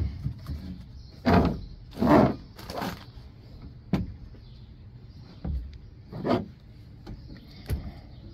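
Ford truck bed extender being unfolded by hand: a run of short scrapes and knocks as its hinged panels swing open, with a sharp click about four seconds in.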